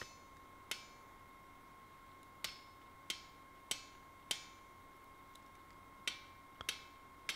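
Hammer blows on a small blacksmith's butcher held against a red-hot steel scythe blade on the anvil: about eight faint, short metallic strikes, unevenly spaced, each with a brief ring. The butcher is squaring up the blade's spine and undercutting it.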